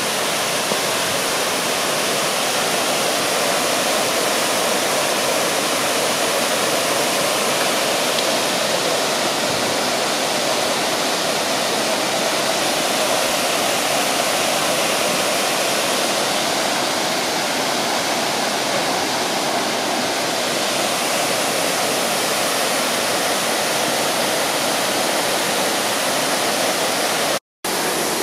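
A waterfall rushing close by: a loud, steady roar of falling water that breaks off for a moment near the end.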